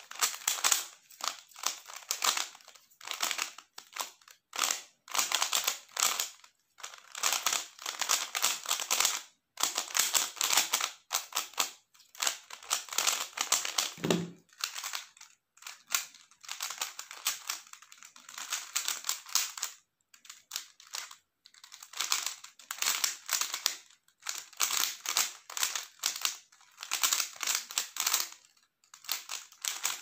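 Plastic 3x3 Rubik's cube being turned fast: dense clicking and clacking of the layers in flurries of a second or two, broken by short pauses.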